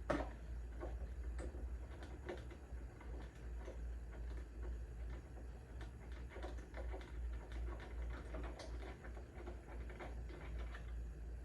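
Scattered light clicks and knocks of a socket wrench and small parts being handled at the back of a motorcycle's tail section, over a steady low hum.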